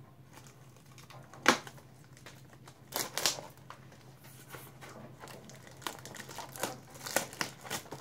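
Trading card pack wrappers crinkling and tearing, with scattered sharp clicks and rustles of handling. The loudest is a single sharp snap about a second and a half in.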